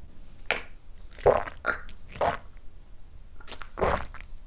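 A man knocking back a shot of soju: a few short swallowing and breathing sounds, ending in a breathy exhale as he grimaces at the burn of the liquor.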